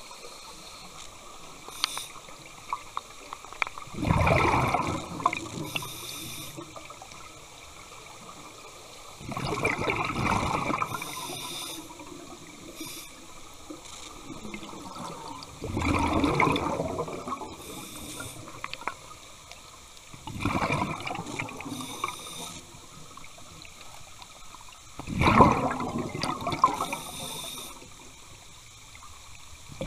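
Scuba diver breathing underwater through a regulator: a rush of exhaled bubbles roughly every five seconds, five times, with a fainter, higher hiss of each in-breath between them.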